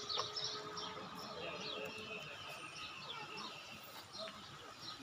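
Birds chirping and calling in the trees, many short quick high chirps overlapping, over a steady outdoor hum.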